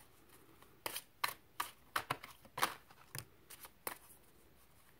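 Tarot cards being handled and shuffled between draws: an irregular run of about a dozen short, crisp card snaps and taps.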